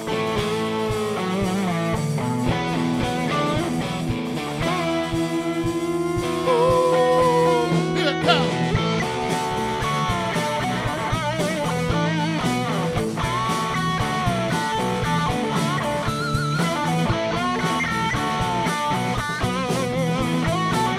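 Live classic rock band playing an instrumental passage: electric guitars, bass and drums, with a guitar line of sustained, bent notes that waver with vibrato.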